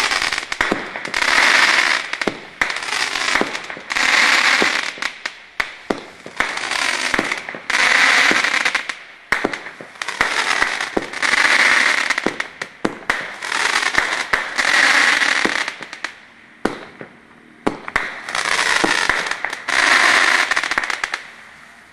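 Diamond Feuerwerk 'Tropical Fire' firework battery firing shot after shot, with sharp pops and reports. About every three seconds a dense crackling swell lasts a second or two. The volley tails off near the end.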